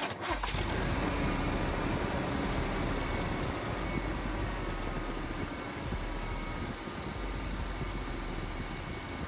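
Chevy Silverado pickup's engine idling steadily with a leaking exhaust manifold, hot exhaust escaping at the manifold.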